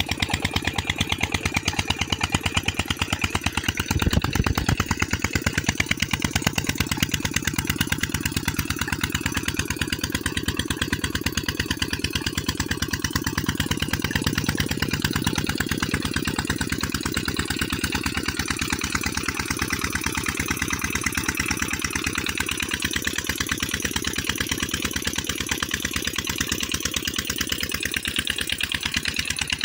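Old 16 HP diesel engine running steadily with an even, rapid exhaust beat while it drives a tube-well water pump by a flat belt. It is briefly louder about four seconds in.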